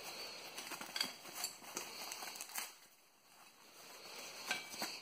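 Plastic bubble wrap being unrolled by hand, crinkling and crackling in quick irregular crackles that die down a little before halfway and pick up again near the end.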